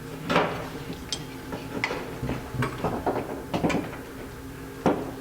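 Small metal carburetor parts and hand tools clicking and clinking in separate knocks, about one every second, as a single-barrel carburetor is being taken apart. A faint steady hum runs underneath.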